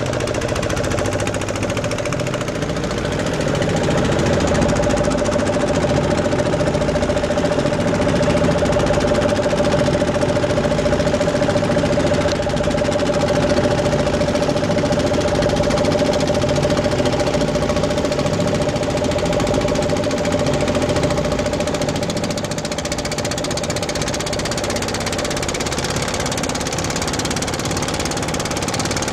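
Boat engine running steadily with a fast, even beat and a steady hum, a little louder from about four seconds in until about twenty seconds in.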